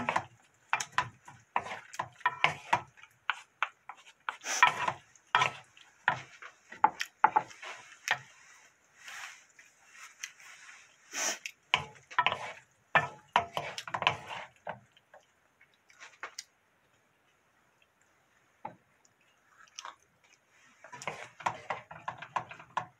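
Wooden spatula stirring and scraping stir-fried pork skin in a frying pan: irregular clacks and scrapes of wood on the pan over a faint sizzle. The stirring stops for several seconds, then more scraping and clatter near the end.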